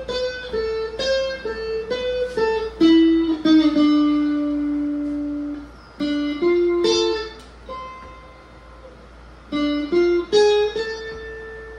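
Guitar music: a slow melody of single plucked notes, some held and left to ring, with a quieter lull in the middle.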